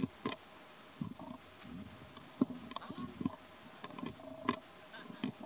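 A baby macaque chewing and smacking its lips on food, a string of irregular soft clicks and crunches.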